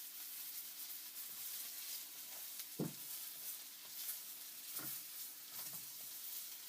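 Bacon sizzling as it fries: a steady high hiss with fine crackling, and a few louder pops of spitting fat, the loudest about three seconds in.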